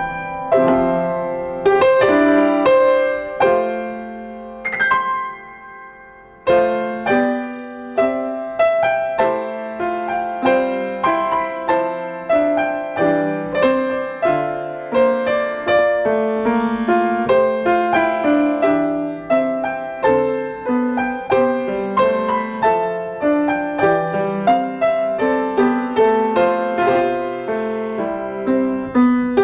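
Solo piano playing a slow, quiet piece of struck notes and chords that ring and fade. A few seconds in, one chord is let die away before the playing picks up again.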